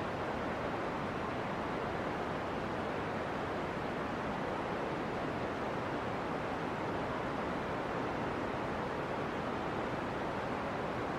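Steady, even rushing hiss of steam venting under pressure from a fumarole.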